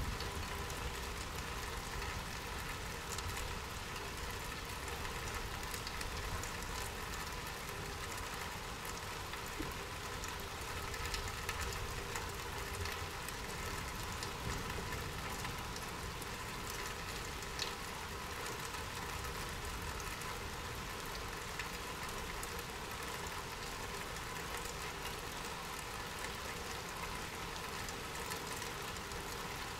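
Steady rainfall, a continuous even hiss with scattered individual drop ticks.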